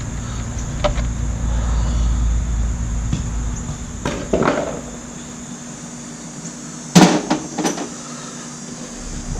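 Parts and tools being handled in a car's engine bay: light clicks and scuffling, then one sharp knock about seven seconds in, followed by a lighter one.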